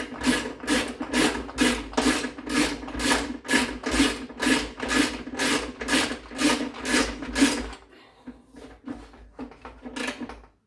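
Quick rasping back-and-forth strokes of a hand tool, about three a second, as work on the washer's drum shaft screws is finished; they stop about eight seconds in, leaving a few lighter scrapes and ticks.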